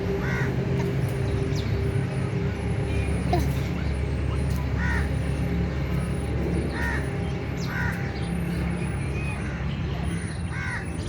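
A bird calling in short calls, about five through the stretch, over a steady low hum.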